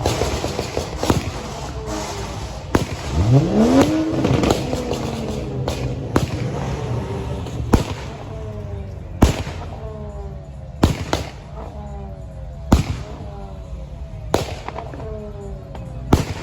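Fireworks going off, sharp bangs about every one to two seconds. An engine revs up once a few seconds in.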